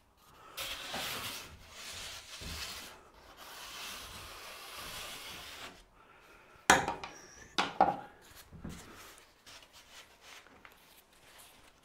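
Rubbing and scraping against a foil-faced PIR insulation board while Gapotape foam tape is handled for about five seconds, then two sharp knocks about a second apart and light handling noises.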